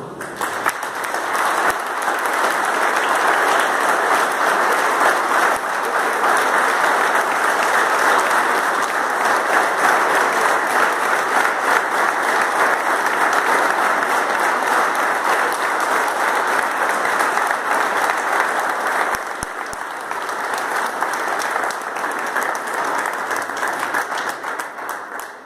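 A church congregation applauding: a long stretch of dense, steady clapping that eases a little about two-thirds of the way through and dies away at the end.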